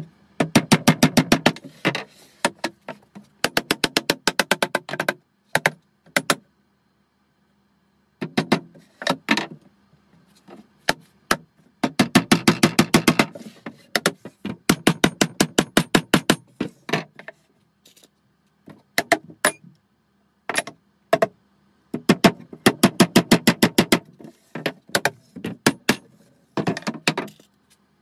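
Claw hammer striking the wooden corner joints of a beehive super box: runs of quick, light taps, several a second, each run lasting a second or two, with pauses between.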